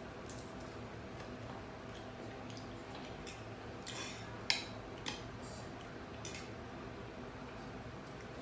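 Scattered light clicks and taps over a steady low hum, the sharpest click about four and a half seconds in.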